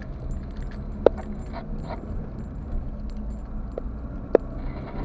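Car driving, heard from inside the cabin: a steady low road and engine rumble, broken by a few sharp clicks, the sharpest near the end.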